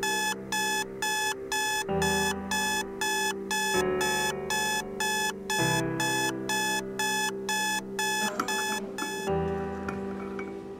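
Digital alarm clock beeping rapidly and evenly, about two and a half beeps a second, over background music. The beeping stops about nine seconds in, as it is switched off.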